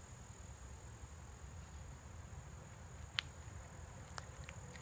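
Insects in the woods keeping up a steady, high-pitched trill. A single sharp click sounds about three seconds in, followed by a few fainter ticks.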